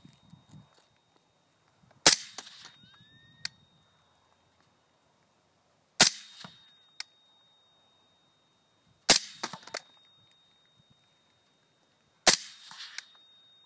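Four suppressed shots from a 5.56 mm MK-12 rifle fitted with an AAC 762-SD suppressor, fired slowly about three seconds apart. Each is a sharp crack with a short tail, and a light click follows two of them.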